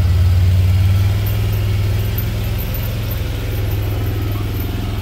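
A motor vehicle engine idling, a steady low hum that is slightly louder in the first second.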